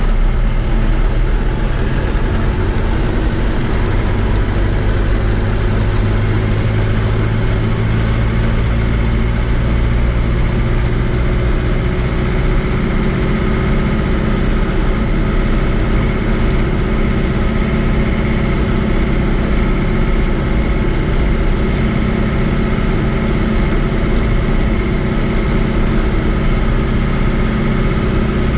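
Fiat 80-90 DT tractor's diesel engine running steadily while the tractor drives along a road, heard from inside the cab.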